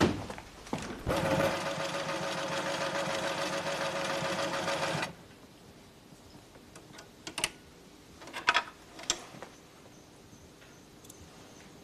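A small machine runs with a fast, even buzz for about four seconds, then cuts off abruptly. A few light clicks follow.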